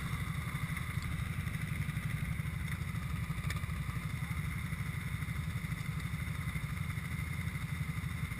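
ATV engine running with a steady, low, pulsing beat and no clear revving.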